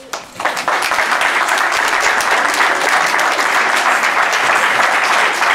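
Audience applauding: a few scattered claps that swell into steady applause about half a second in.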